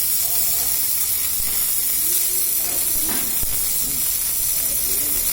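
Welding on a borewell drilling rod: a steady high-pitched hiss and sizzle that holds even throughout.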